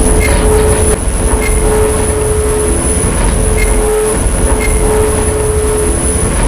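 Washing machine spinning at speed on its spin cycle: a loud, steady low rumble with a mid-pitched motor whine that breaks and returns about once a second, a constant high whistle, and a faint tick about once a second.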